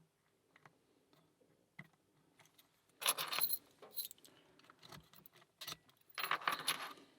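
Steel lock picks and tension wrench working in a four-pin Alpha 1000 padlock: faint ticks of pin picking, then two short bursts of metallic jangling and rattling about three seconds apart, with a few sharp clicks between.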